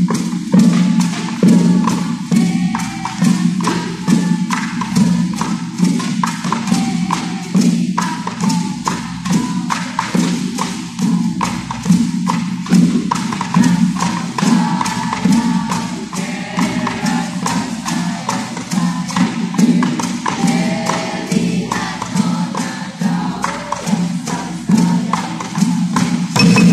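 Drum ensemble of hand-held drums and large barrel drums playing a fast, even beat over a steady low drone.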